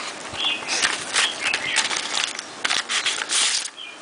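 Rustling and crinkling of packaging being handled, in irregular bursts, loudest near the end. Birds chirp faintly in the background.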